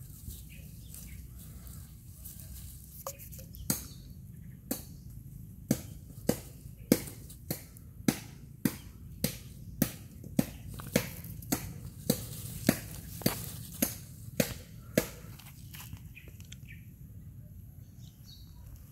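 A run of about nineteen sharp clicks, the first few about a second apart, then an even beat of under two a second, stopping suddenly about three-quarters of the way through, over a faint steady low outdoor rumble.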